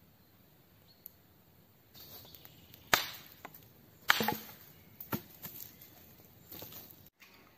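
Dry dead branches being broken for firewood: two loud, sharp wooden cracks about a second apart, then a few lighter snaps with rustling of sticks.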